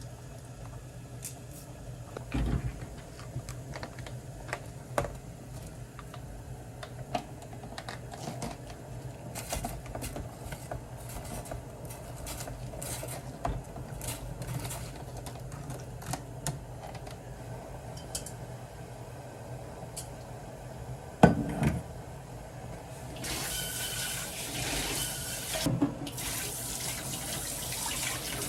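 Kitchen tap running into a sink for about five seconds near the end, with a short break partway. Before it come scattered small clicks and knocks of utensils and dishes, and one louder knock.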